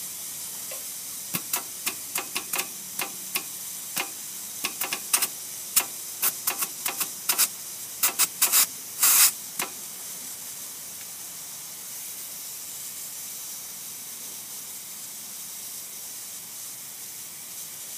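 Compressed air hissing steadily from a pressurised air-compressor tank and its brass fittings. In the first half a hand works the valve fitting, letting out a run of short, sharp spurts and clicks; the longest, loudest spurt comes about nine seconds in.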